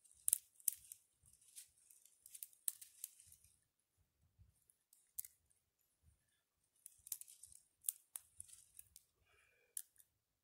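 Small dry twigs being snapped and broken by hand, a run of sharp cracks and crackles with some rustling. The snapping comes in two busy spells, the first few seconds and again from about the middle to near the end, with a quieter gap between.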